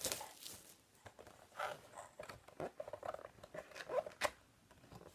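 Rustling and light tapping from a cardboard trading-card box and its card packs being handled, with scattered short clicks.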